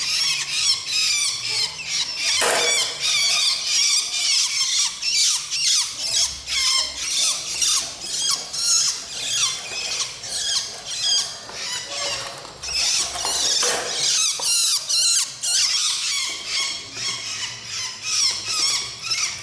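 Two long-tailed shrike nestlings giving high-pitched squealing begging calls, a dense, unbroken stream of short chirps.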